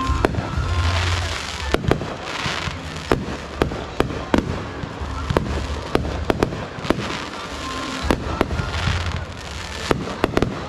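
Fireworks display: aerial shells bursting in sharp, irregularly spaced bangs, some coming in quick pairs, with stretches of hissing crackle between them.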